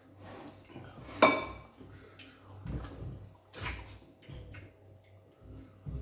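Dishes and utensils clinking during a meal: one loud, ringing clink about a second in, followed by several smaller clicks and knocks.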